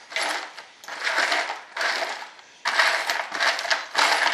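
A hand rummaging through a wooden tray of loose screws, nuts and small metal hardware, the parts rattling and clinking in several irregular bursts.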